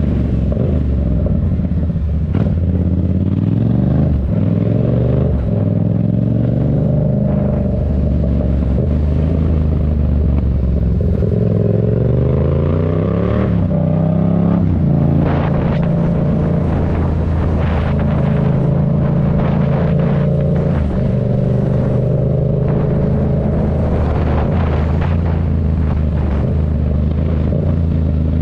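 Yamaha MT-07's 689 cc parallel-twin engine through a Black Widow aftermarket exhaust, riding in traffic. The engine note rises as the bike accelerates, drops sharply at a gear change about fourteen seconds in, and settles into a steady rumble between throttle openings.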